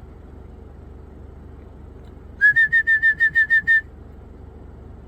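A person whistling a quick run of about nine short, even notes, lasting just over a second, to call an animal over.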